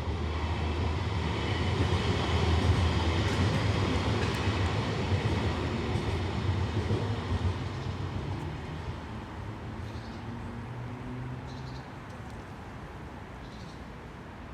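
A vehicle passing by, a broad rushing noise with a low hum that builds to a peak a few seconds in and then fades away over the next several seconds.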